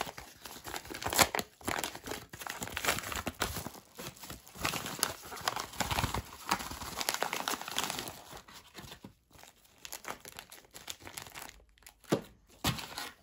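Coin packaging crinkling and rustling as it is unwrapped by hand, with many irregular sharp crackles. It quietens in the last few seconds.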